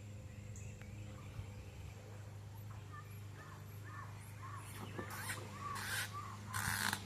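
Small birds chirping repeatedly over a steady low hum, with a few short rustling scrapes in the last two seconds, the loudest sounds here.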